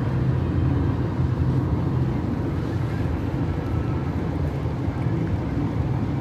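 Steady low road and engine rumble of a moving car.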